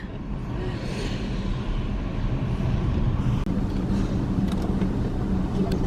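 Steady low rumble of a road vehicle in motion, with a faint held hum under it.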